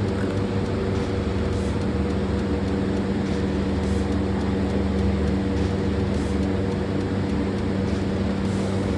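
A steady machine hum that holds one even pitch.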